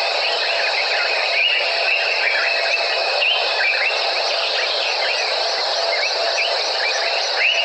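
Dense evening chorus of insects, a steady shrill trill with many short sliding chirps scattered through it.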